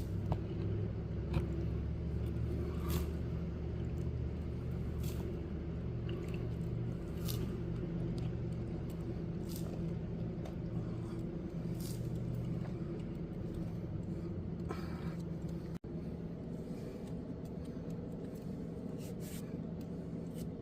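Steady low hum of a running motor, with a few faint scattered clicks.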